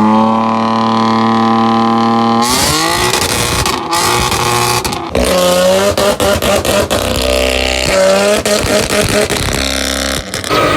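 Exhaust of a tuned BMW M car: the engine note holds steady for about two and a half seconds, then revs up and down in repeated pulls, broken by several short sharp cracks.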